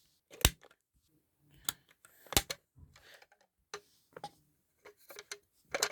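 Irregular sharp clicks and knocks from a KAC manual fire alarm call point being handled, its resettable plastic element giving trouble. The loudest click comes about two and a half seconds in, with a short cluster near the end.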